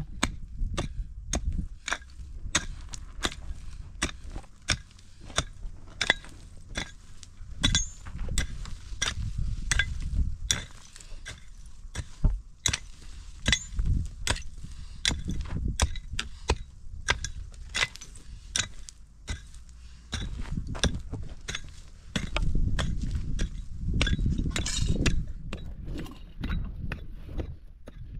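A hand hammer striking rock, breaking up stony ground: sharp metal-on-stone clinks at irregular intervals, roughly two a second, over a low rumble.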